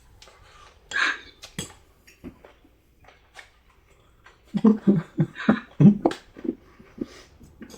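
Spoon and fork clinking and scraping on a plate while eating, in scattered clicks with a busier run of knocks around the middle.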